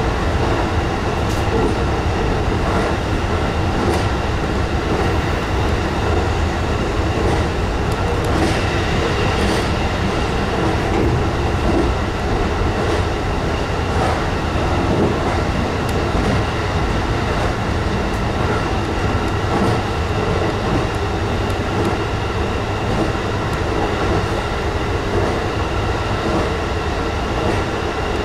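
Steady running noise of a JR East E233 series electric train heard from inside the car while it travels through a tunnel, with occasional faint clicks from the wheels on the rails.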